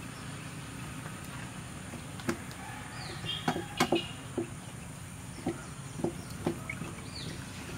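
Scattered light knocks and clinks of dishes and kitchen utensils being handled on a wooden table, about eight in all, most of them in the middle of the stretch. Birds chirp briefly in the background.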